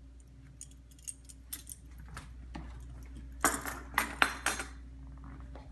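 Metal kitchen utensils clinking: a few light clicks, then a rattling burst of clinks about three and a half seconds in.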